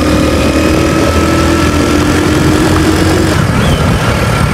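Motorcycle engine running steadily while riding along a road, with road and wind noise.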